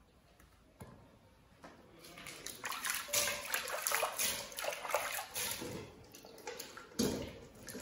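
Quiet at first, then about two seconds in, water pouring and sloshing unevenly, with a thump near the end.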